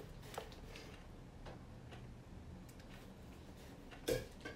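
A few faint light taps and clicks as small plastic toiletry bottles are handled and set down, with a louder knock about four seconds in.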